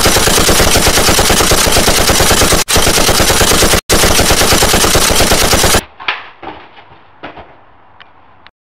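Loud automatic machine-gun fire sound effect, a rapid unbroken string of shots with two brief breaks about two and a half and four seconds in. It cuts off after about six seconds and is followed by a few faint clicks and knocks.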